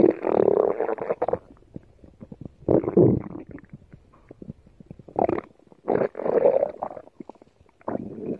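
Stomach growling and gurgling: a series of rumbles, each lasting up to about a second and a half, loudest at the start and again about three and six seconds in, with small gurgling pops between them.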